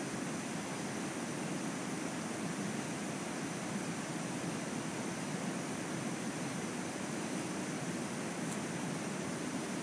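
Steady rushing outdoor noise with a few faint, thin, steady high tones above it.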